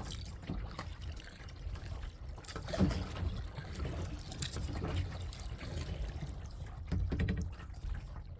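Kayak paddle strokes through lake water: water trickling and dripping off the blades, with small splashes and a steady low rumble underneath.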